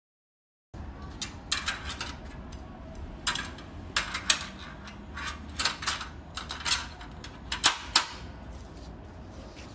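Metal lamp pole clicking and knocking against a black metal table panel as it is slid and pushed back into its mounts: a string of sharp taps and clacks, starting about a second in.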